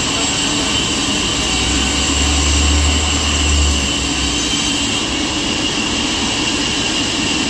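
Sawmill saw machinery running steadily and loudly, with a constant high-pitched whine over a low hum.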